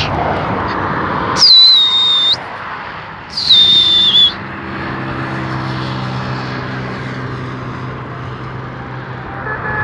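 Two loud, sharp human whistles, each about a second long, that start high, drop quickly and hold a steady pitch: a pigeon keeper whistling at birds he has just released. After them a vehicle engine runs steadily with a low hum.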